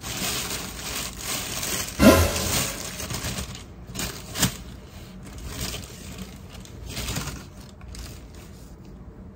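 Plastic mailer bag being torn open and handled, rustling and crinkling, with a few sharp clicks and taps about two, four and four and a half seconds in; the handling grows quieter in the second half.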